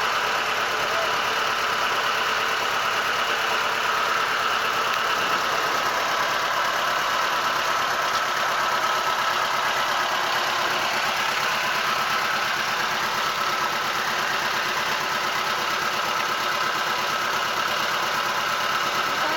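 A boat's engine running steadily at an even level, a constant droning hum.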